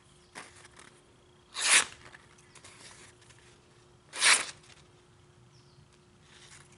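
Thin stainless steel knife blade drawn across a diamond sharpening stone to finish the edge: two loud scraping strokes about two and a half seconds apart, with fainter scrapes between them and near the end.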